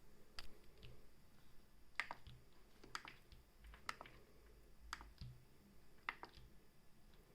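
Faint clicks of the FreeDeck's key switches being pressed and released, about one press a second, most of them a quick double click.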